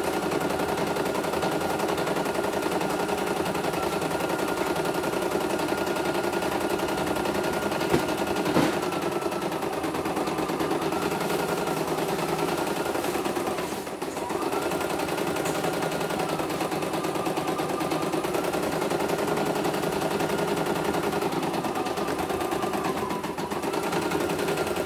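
CNY E900 computerised embroidery machine stitching the next thread colour: a rapid, steady needle clatter with a motor whine that dips and recovers, slowing briefly about halfway through and again near the end. Two sharp clicks come about eight seconds in.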